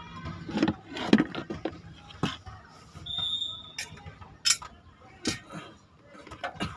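Scattered sharp metallic clinks and knocks, about seven at uneven spacing, as hand tools and parts are handled while working on a Honda H100 engine. A short high-pitched tone comes about three seconds in.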